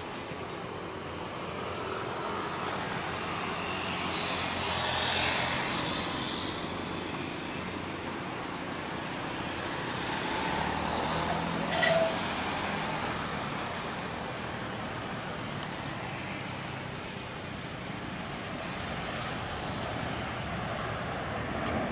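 Jet engines of a Batik Air Airbus A320 on its landing rollout: a steady rushing roar that swells twice, around five seconds in and again around eleven. A short sharp click cuts in just before the middle.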